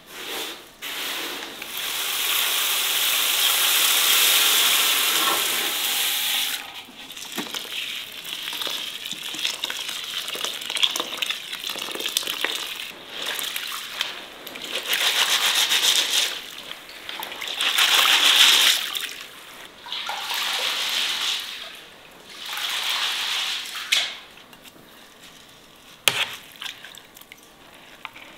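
Wheat grains being washed by hand in water in a large aluminium basin: a long rush of water pouring in, then repeated swishing strokes of about a second and a half each as the grain is stirred and rubbed.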